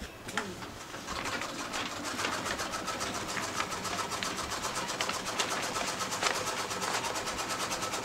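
Sewing machine stitching steadily, a fast even clatter that starts about a second in.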